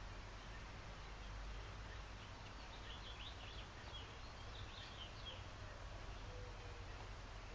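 Quiet room tone: a steady low hum and hiss, with a few faint, short high chirps in the middle.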